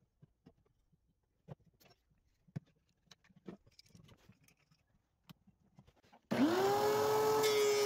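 Faint clicks and knocks of hand work with a quick-grip bar clamp and a wooden handle blank, then about six seconds in a benchtop thickness planer switches on: its motor runs up in pitch and settles into a loud, steady running sound.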